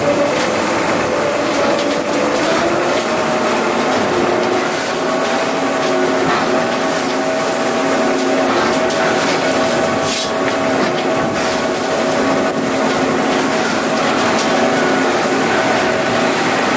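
Tractor engine running steadily, driving a Kuhn Knight VT180 vertical feed mixer through its 1000 rpm PTO. The hum rises a little in pitch a few seconds in.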